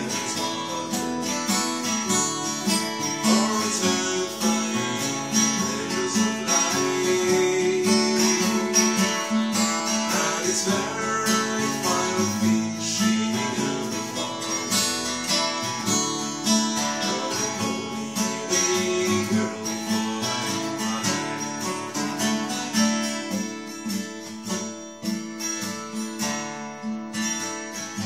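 Acoustic guitar strummed and picked in a steady rhythm, playing an arrangement of an old Irish song. It grows softer over the last few seconds.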